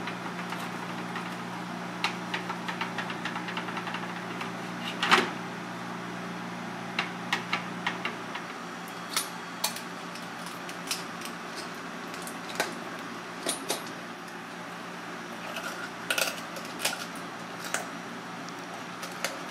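Surf clam shells clacking against a metal tray and a knife clicking and scraping on a clam's shell as it is pried open: scattered sharp clicks and knocks, one louder knock about five seconds in. A steady kitchen hum runs underneath and drops a little about eight seconds in.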